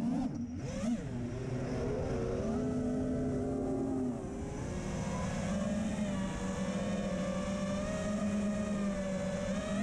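The TBS Silk brushless motors and 5-inch three-blade propellers of an FPV freestyle quadcopter whine as the pilot works the throttle. The pitch dips sharply about half a second in, wavers up and down, holds steadier through the second half, and climbs again near the end.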